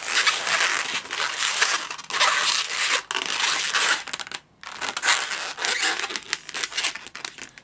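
Inflated 260-size latex twisting balloons rubbing and scraping against each other and against fingers as two bubbles are twisted together, a dense scratchy rustle with one brief pause a little past halfway.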